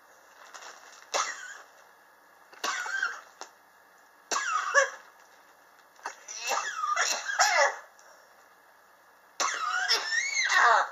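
A person coughing in five harsh bouts about two seconds apart, the middle one a quick run of several coughs and the last the longest. It is a chronic cough that has gone on for about three years.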